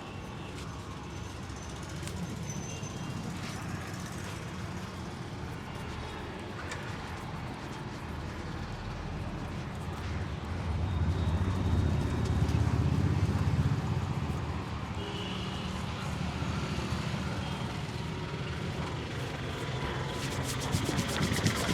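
Street traffic noise, with a heavy vehicle's engine rumble swelling and passing about halfway through. A run of quick taps comes near the end.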